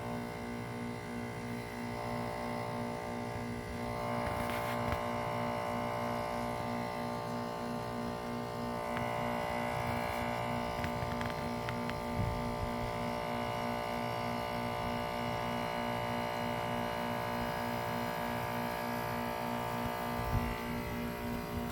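A 2007 Carrier base-model 2-ton heat pump running in defrost mode: a steady, multi-toned mechanical hum with a faint pulsing beat a few times a second.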